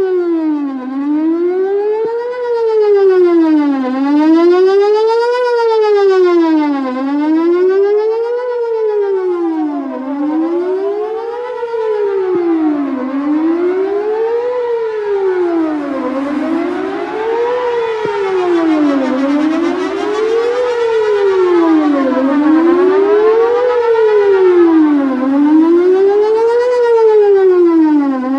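Whelen WPS-4008 electronic outdoor warning siren sounding its test tone: a loud, steady wail that sweeps up and down in pitch about once every two and a half to three seconds.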